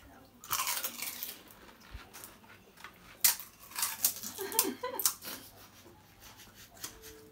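Crisp pani puri shells cracked and eaten in quick mouthfuls, with bursts of crunching and mouth noise and a short muffled laugh about two-thirds of the way through.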